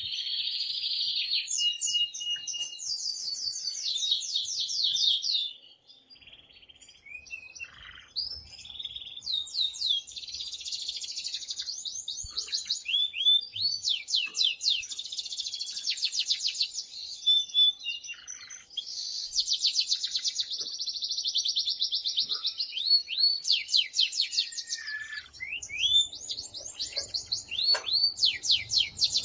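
Domestic male canary singing loud, excited song: long rapid trills and fast repeated rolling notes in bouts, broken by a short pause about six seconds in.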